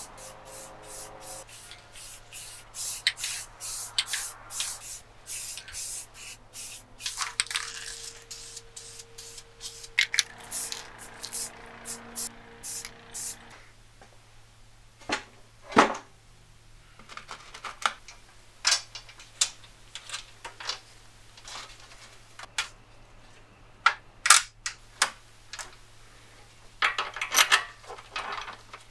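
Short hisses of an aerosol spray-paint can over the first few seconds, then scattered sharp metallic clicks and clinks of nuts, bolts and washers being handled, with a quick run of clinks near the end.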